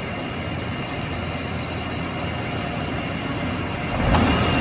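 1996 Chevy 4.3 L V6 idling steadily, then revving as the throttle is snapped about four seconds in. This engine has a misfire under load, traced to a cracked spark plug that is carbon-tracking to ground.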